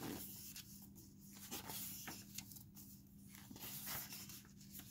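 Glossy pages of a large hardcover art book being turned by hand: soft paper swishes and rustles, with a few light ticks, over a faint steady low hum.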